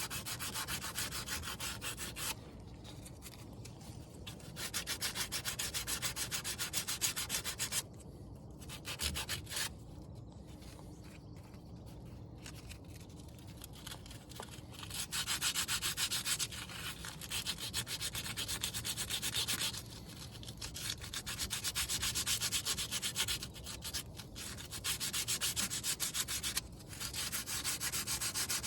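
Sandpaper rubbed by hand in rapid back-and-forth strokes, in bouts of a few seconds broken by short pauses.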